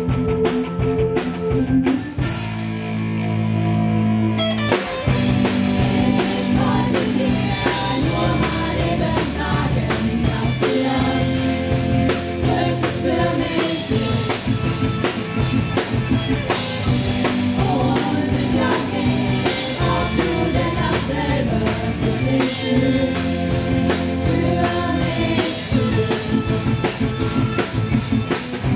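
Live pop-rock band: female voices singing over drum kit, electric guitar and keyboard. The drums drop out a couple of seconds in, leaving held chords, and the full band with its beat comes back in about two seconds later.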